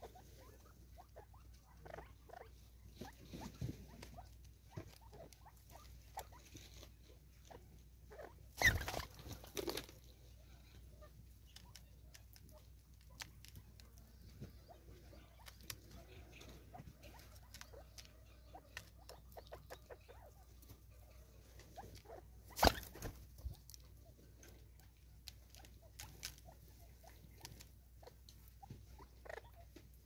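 Natal spurfowl feeding: soft, irregular pecking taps and scratching on the wooden stump, seed bottle and dry leaves, with two louder knocks about 9 and 23 seconds in.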